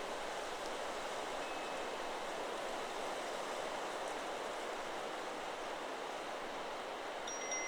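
Steady rush of wind through forest trees. A faint chime tone sounds briefly about a second and a half in, and near the end the metal tubes of a Chakra Chimes 'Solar Plexus' wind chime start ringing again.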